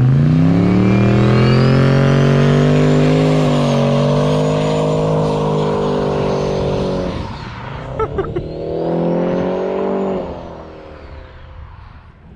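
1968 Pontiac Le Mans muscle car launching hard with its tyres spinning and smoking. The engine revs up and holds high for several seconds, drops about seven seconds in, pulls again, then fades as the car drives away.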